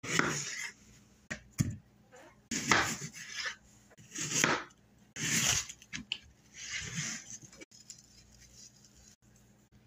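A kitchen knife cutting small red potatoes and then an onion on a plastic cutting board: a series of short crunching slices, each ending in a tap of the blade on the board.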